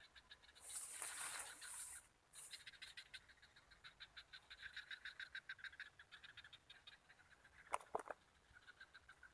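Frogs calling in fast, evenly pulsed trains, faint, with a brief high insect-like hiss about a second in. A single sharp click near the end is the loudest sound.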